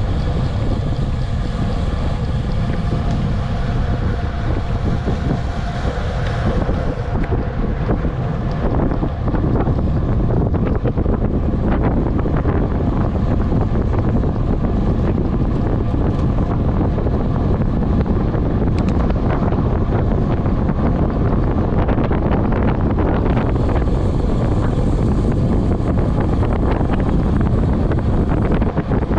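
Heavy wind noise buffeting the microphone at speed during a fast downhill descent: a steady, loud rush with a deep rumble underneath.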